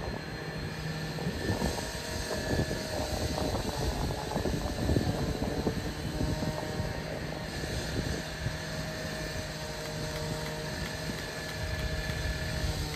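Distant diesel freight locomotive approaching on the main line, a steady engine drone with several held tones.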